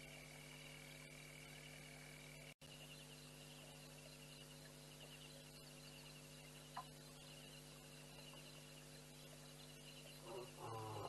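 Faint night ambience of frogs calling over a steady low hum. About ten seconds in, a lion's low, moaning call begins, the opening of a roaring bout.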